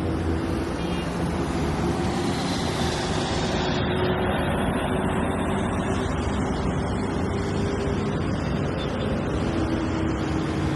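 Busy road traffic: a steady, dense wash of engine and tyre noise from many cars, buses and trucks, with a low engine hum running under it.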